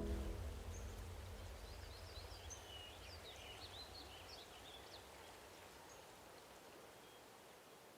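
Faint outdoor ambience: a soft steady hiss under a bird chirping in a quick run of high, rising and falling notes from about a second in for a couple of seconds, while a low rumble fades away.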